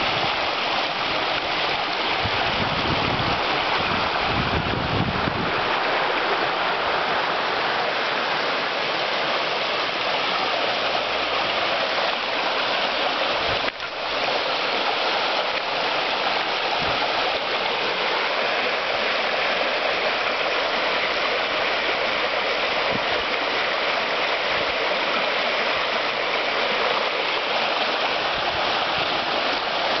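Shallow, fast-flowing river rushing over rocks: a steady, dense rush of water. Low rumbling in the first few seconds.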